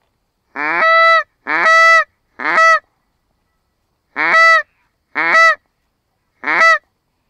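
Six Canada goose honks in two groups of three, each a short upward slide into a held higher note, with dead silence between them.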